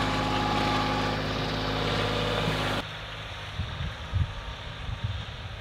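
Compact tractor engine running steadily close by. About three seconds in it cuts to a fainter engine rumble with low gusts of wind on the microphone.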